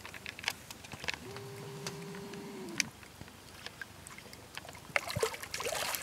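Hooked carp splashing and thrashing at the water surface, with scattered small splashes and a burst of heavier splashing near the end. A held droning tone sounds for under two seconds about a second in.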